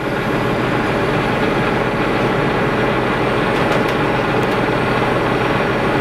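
Heavy diesel engine running steadily at a constant speed.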